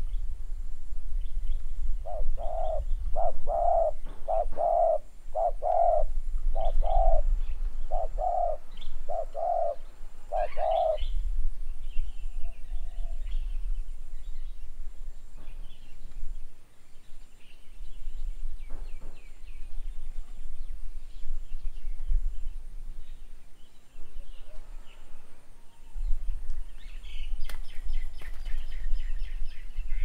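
A dove cooing, a run of about ten even low notes a little under a second apart, followed later by small birds chirping that grows busier near the end. A low rumble, like wind on the microphone, runs underneath.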